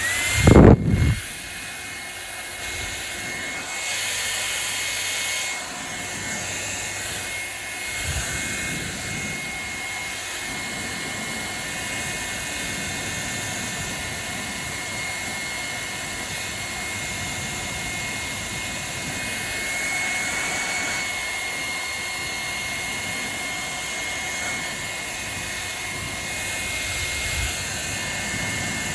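Hair dryer switched on, with a brief loud burst in the first second, then running steadily: a loud rush of air with a thin, high motor whine. The airflow shifts slightly a few times.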